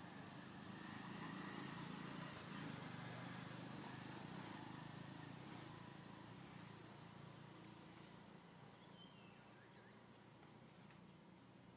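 Insects droning steadily at one high pitch, over faint low background noise.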